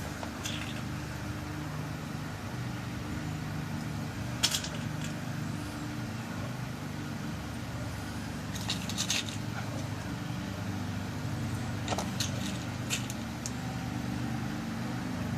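Small sharp clicks and ticks of tiny lock pins being set into a lock cylinder's plug during a rekey: a single click early on, a quick cluster about nine seconds in, and a few more near the end. Under them runs a steady low hum.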